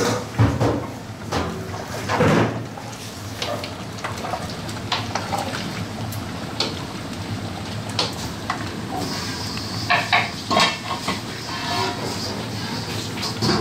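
Aluminium pot lids and a metal ladle clanking and scraping against large aluminium cooking pots as curries are uncovered and stirred, in irregular knocks over a steady low kitchen hum.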